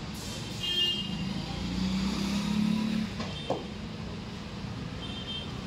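A motor vehicle engine running steadily in the background, growing louder for a second or two in the middle as if passing. There are two short high beeps, one near the start and one near the end, and a single light knock in between.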